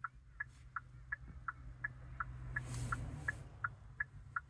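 Car's turn-signal flasher ticking steadily in an alternating tick-tock, about 80 cycles a minute, over a low hum. A short rustle about halfway through.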